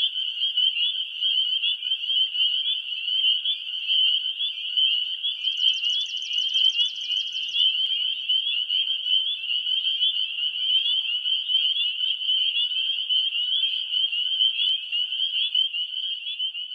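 Dense chorus of frogs calling, high, rapid peeping notes massed into a steady din. About six seconds in, a faster and higher trill joins for about two seconds.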